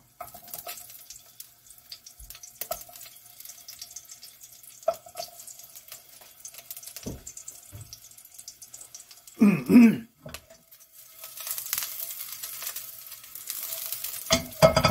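Sliced garlic frying in canola oil in a pan, with a light sizzle that grows louder over the last few seconds. Small knife clicks come as the cloves are sliced into the pan, and there is one brief loud sound about ten seconds in.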